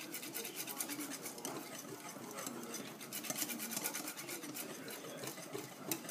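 A thin batter of self-raising flour and cold soda water being whisked in a large bowl. The whisking makes quick, rhythmic scraping strokes, several a second.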